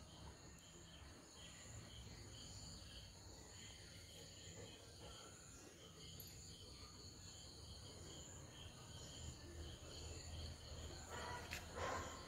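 Near silence with faint, steady cricket chirping, a soft pulse repeating a few times a second; a faint rustle near the end.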